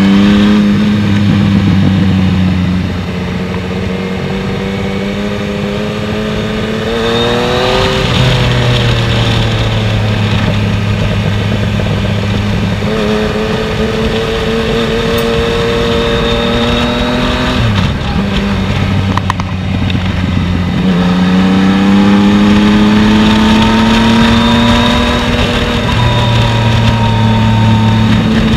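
Yamaha MT-09's inline-three engine running on the move, its revs rising and easing off several times, with a brief dip in revs about eighteen seconds in.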